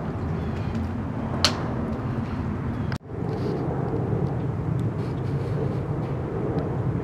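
Outdoor wind buffeting the microphone as a steady low rumble. There is a short sharp click about a second and a half in, and the sound cuts out for an instant about three seconds in.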